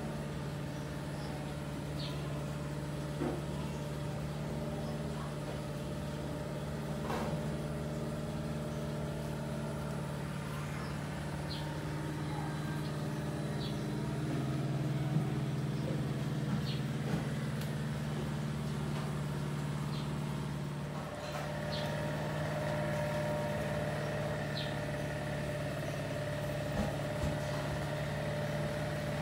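Steady low mechanical hum with an even pitch that shifts slightly about two-thirds of the way through, with a few faint light clicks.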